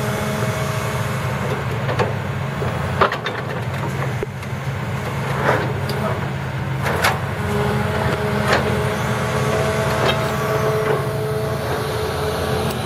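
Tracked excavator's diesel engine running steadily with a thin whine that comes and goes, and about half a dozen sharp knocks as the steel hydraulic clamp sets a row of concrete dike blocks down and releases them.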